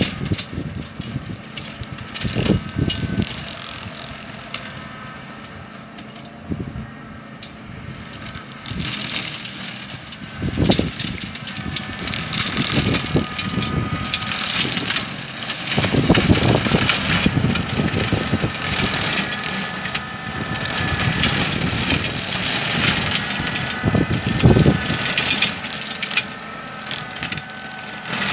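Canycom CMX 227 4WD ride-on brush cutter running under load, its engine pitch wavering as the blade chops through brush and saplings with crackling and crushing of stems. It grows louder after about nine seconds as the machine comes closer.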